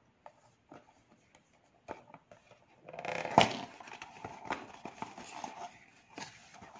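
Cardboard smartwatch box being handled and opened: scraping and rustling of the card with small clicks, starting about three seconds in, and one sharp tap of the box shortly after.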